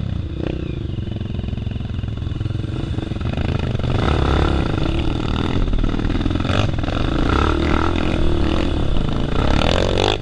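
Dirt bike engines running under load on a steep rocky trail climb, getting louder about three or four seconds in, with a few sharp knocks.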